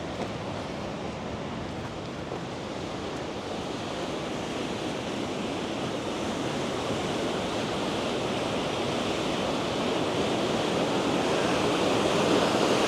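Steady rush of a waterfall, growing gradually louder.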